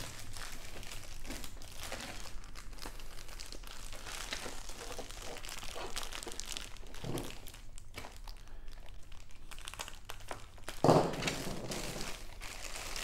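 Large clear plastic bags crinkling and rustling as they are handled and lifted out of a cardboard box, the bags holding the plastic parts of a model kit. A brief louder burst comes about eleven seconds in.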